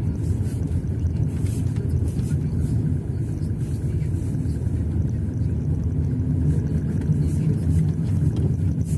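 Car driving slowly on a snow-covered road, heard from inside: a steady low rumble of engine and tyres.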